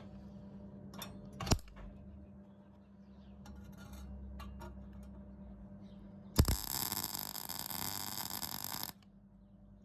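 MIG welder laying a short burst of weld on thin car body steel: the arc strikes with a sharp crack about six seconds in, crackles steadily for about two and a half seconds, and cuts off suddenly when the trigger is released. Two metallic knocks come a second or so before, over a low steady hum.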